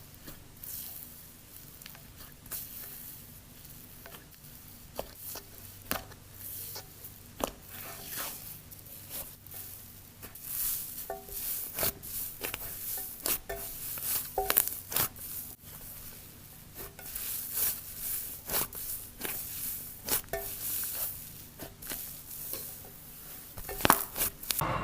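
Slime being squeezed and worked by hand, giving many small irregular crackles, pops and squishes, which come faster and louder after about ten seconds.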